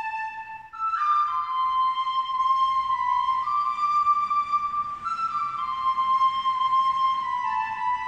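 A closed door giving off a flute-like whistle: held tones that step between a few pitches, each lasting a second or more, with a breathy rush about a second in.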